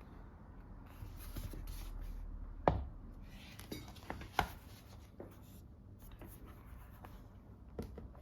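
Hands handling a laptop's packaging: rustling and rubbing, then a few sharp clicks and knocks, the loudest about two and a half seconds in.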